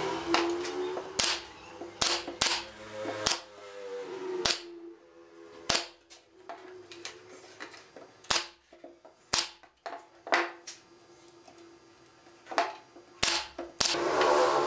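JOK pneumatic brad nailer firing into wood, about fifteen sharp shots at uneven intervals, some in quick pairs and others a second or two apart.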